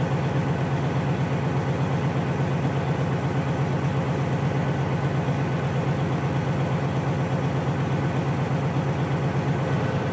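Detroit Diesel Series 60 14-litre six-cylinder diesel idling steadily at about 1000 rpm with cylinders 2 and 5 cut out by the service tool, a cylinder cutout test to check that each injector is firing. The engine note is an even, rapid pulsing.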